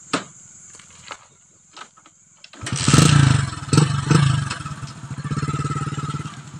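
Small motorcycle being kick-started: a few short clicks of the kick lever, then the engine catches about two and a half seconds in. It is revved a few times and settles into a steady, evenly pulsing idle.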